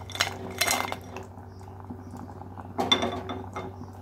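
Crockery and utensil clinks as roasted cashews, raisins and spice powder are tipped off a plate into a saucepan: a few sharp clinks in the first second and another cluster around three seconds in.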